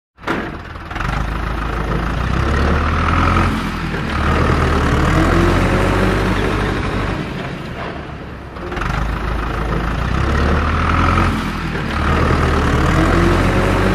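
Heavy truck engine sound effect, running with a steady low rumble and revs that rise and fall. The same stretch of about eight seconds plays twice.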